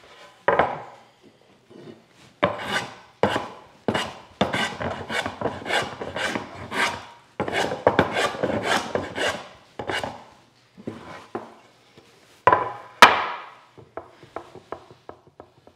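Hand scrub plane cutting across a rough board, about a dozen quick scraping strokes in a row, taking substantial shavings to knock down a high spot. A couple of sharp wooden knocks follow. Near the end come light ticks as the board is rocked corner to corner on the bench, checking for where it pivots.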